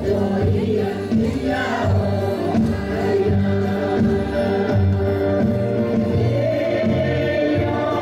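A group of voices singing a Puyuma traditional dance song together, in long held notes.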